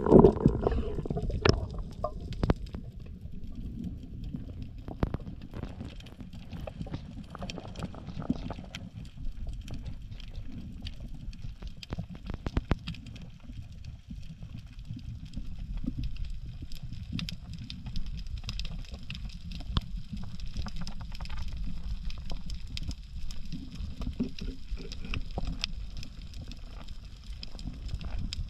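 Underwater ambience heard through a submerged camera: a steady low rumble of water with many scattered faint clicks and crackles, and a louder swirl of water in the first couple of seconds.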